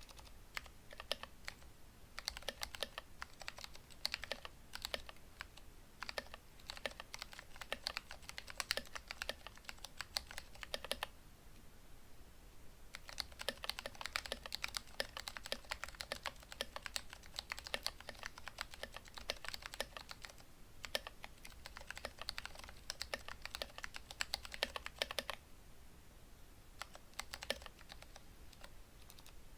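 Typing on a modded Vortex ViBe mechanical keyboard: Cherry MX Clear switches lubed with Tribosys 3203, fitted with 62 g springs, and band-aid modded stabilizers. Steady runs of keystrokes pause for about two seconds a third of the way in, then resume, and thin out to slower single presses near the end.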